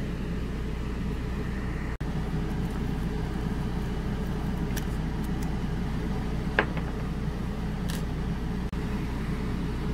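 A steady low motor hum, with a few light clicks over it; the sharpest is about two-thirds of the way through.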